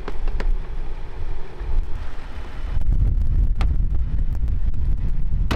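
Wind buffeting the microphone: a low, gusty rumble that grows stronger about halfway through, with a few sharp clicks.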